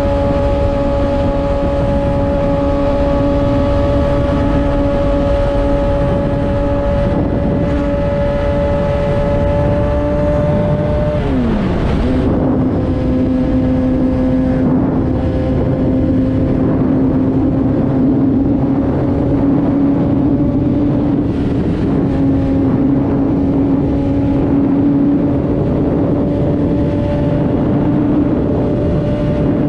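Kawasaki ZX-6R 636 inline-four engine running under way, with steady wind and road noise. The engine note holds steady, drops sharply about eleven seconds in, then climbs slowly again.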